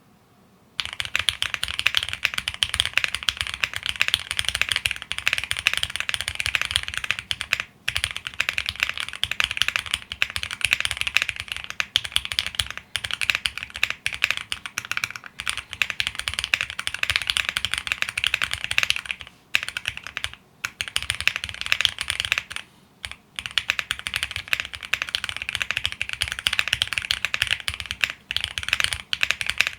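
Fast continuous typing on a custom mechanical keyboard, a Qwertykeys QK75 with lubed Gateron CJ linear switches on a polycarbonate plate and PBT keycaps: a dense stream of keystrokes, starting about a second in, with a few short pauses.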